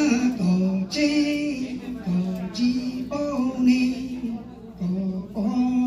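A man chanting a Hmong txiv xaiv verse into a microphone, in long held notes that step up and down between a few pitches, with short breaks between phrases.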